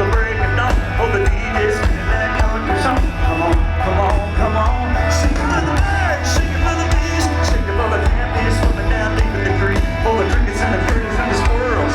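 Live country-rock band playing loud, with heavy bass and a steady drum beat and bending guitar or vocal lines, recorded from far back in the concert crowd.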